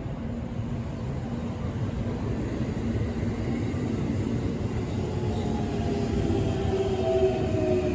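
JR West commuter electric train pulling into the station: the rumble of wheels on rail grows louder as it runs alongside the platform. From about five seconds in, the traction motors' whine falls in pitch as the train brakes.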